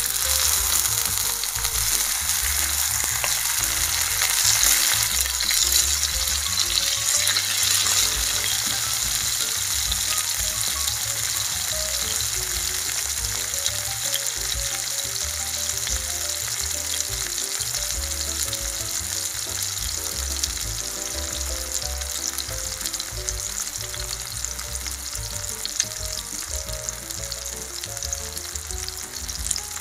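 Food sizzling and crackling in hot oil in a frying pan, starting suddenly and loudest in the first several seconds before easing slightly.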